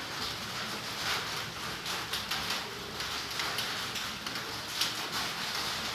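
Long-tailed macaque biting and chewing a ripe tomato: irregular wet clicks and smacks over a steady outdoor hiss.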